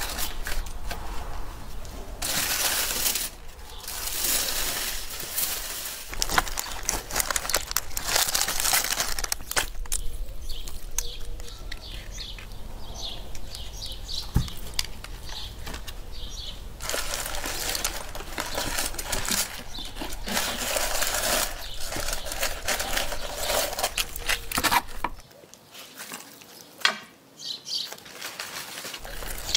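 Rustling and crinkling of aluminium foil with handling noises of roast lamb being pulled apart, coming in several loud stretches with quieter gaps between.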